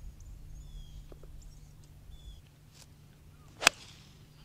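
A 3-iron striking a golf ball off the tee: one sharp, loud crack about three and a half seconds in. Birds chirp faintly in the background.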